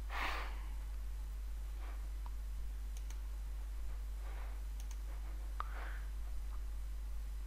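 A few faint computer mouse clicks over a steady low electrical hum.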